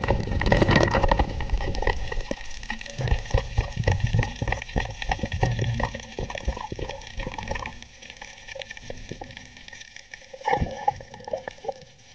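Muffled underwater sound through a camera housing: irregular clicks and knocks over a low rumble of water movement as a speared fish is handled on the spear shaft. Busier in the first half, with a louder cluster of knocks near the end.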